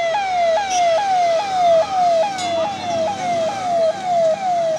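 Fire engine's siren sounding in a fast repeating cycle, each a quick rise then a falling tone, a little over twice a second.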